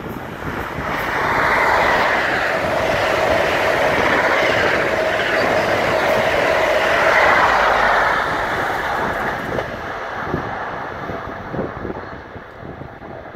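A passenger train passing at speed on the main line, loud for several seconds and then fading away, with a few wheel knocks near the end.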